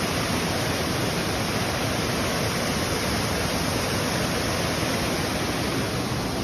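Rushing water of a rocky creek running over rapids and a small cascade, a steady even roar.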